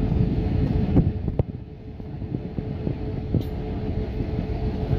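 Jet airliner cabin noise during the takeoff roll: the engines' steady drone carrying one steady tone, over the rumble and repeated bumps of the wheels on the runway. The noise drops a little about a second and a half in and then holds.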